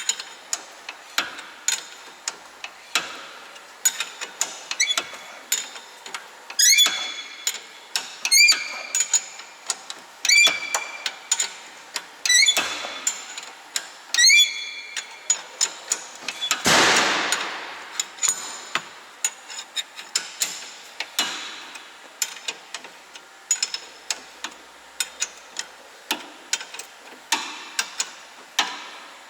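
Repeated sharp metal-on-metal hammer strikes at irregular intervals, several of them ringing briefly, while working loose a seized stabilizer link fastener. A little past the middle, a louder hiss-like burst lasts about a second and a half.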